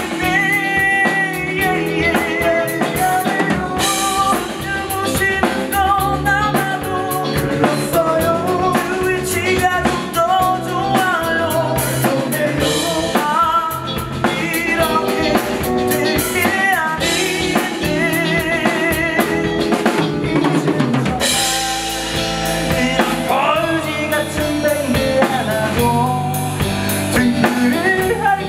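Live rock band playing: drum kit and electric guitars with a male lead vocal and backing vocals. About three-quarters of the way through the band gets fuller and brighter.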